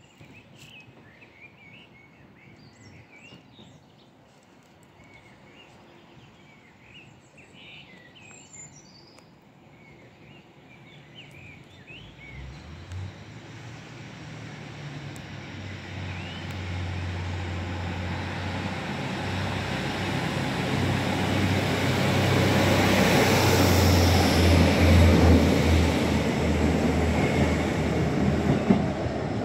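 Birds chirping, then a Northern diesel multiple unit approaching. Its engine drone and rail noise grow steadily louder from about twelve seconds in, peak as it passes close underneath, then ease slightly near the end.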